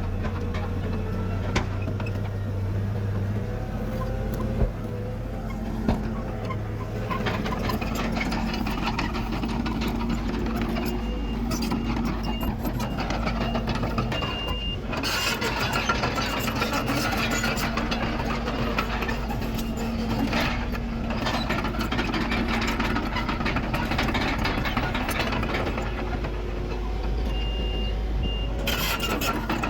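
Heavy diesel earthmoving machinery, a bulldozer and dump truck, running steadily at work. A reversing beeper sounds in two short runs, around the middle and near the end. Brief loud bursts of noise come about halfway through and just before the end.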